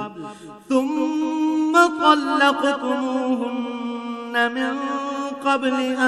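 A man reciting the Quran in Arabic in a melodic chanted style, drawing out long held notes with a slight wavering in pitch, after a brief pause about half a second in.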